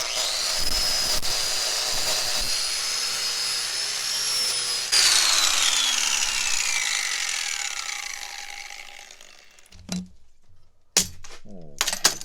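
Electric grinder with a wire wheel running at speed, cleaning crud off the vise, its high whine steady for about five seconds. It is then shut off and winds down, the whine falling in pitch over about four seconds, followed by a few short knocks near the end.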